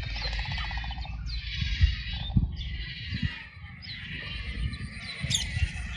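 A colony of nesting waterbirds calling, many harsh bleating calls overlapping without a break.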